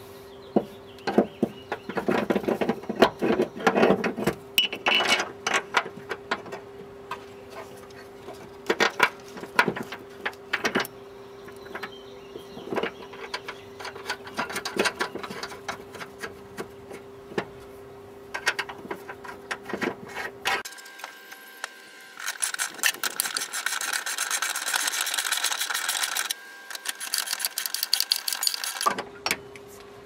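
Clinks and knocks of a steel transmission mount and its bolts being worked into place against a car's body. About two-thirds of the way through comes a run of rapid, even clicking lasting several seconds.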